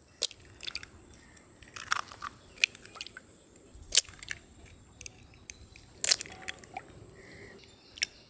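Eggs being cracked open one after another by hand: several sharp cracks of shell, with crunching and crackling as the shells are pulled apart.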